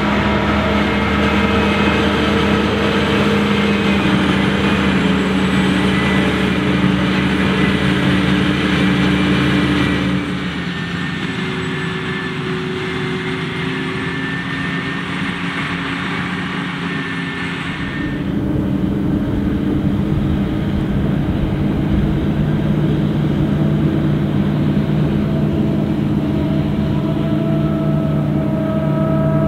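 Diesel engines of a John Deere 8500i forage harvester and the John Deere tractors hauling its silage trailers, running steadily under load while chopping maize. The hum drops and gets quieter about ten seconds in, then comes back louder about eight seconds later.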